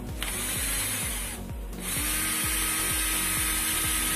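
Lotus cordless drill motor running in two bursts, about a second long and then over two seconds, with a steady whine in the second, while the chuck is held by hand so the motor turns the freshly repaired chuck's jaws open.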